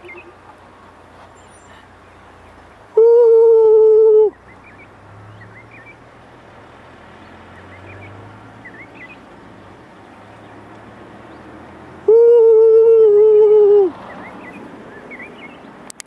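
Two long, loud, steady hooted notes, each held for one to two seconds and dipping slightly at the end, with the second coming about nine seconds after the first. Faint short chirps of small birds run in the background.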